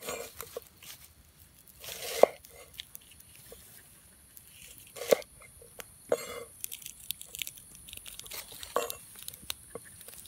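Cleaver slicing onion and tomato on a wooden cutting board: short crisp crunches as the blade goes through, with several sharp knocks of the blade on the board, the loudest about two and five seconds in.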